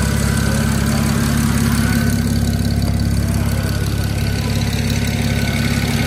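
BMW 335i's inline-six engine idling steadily.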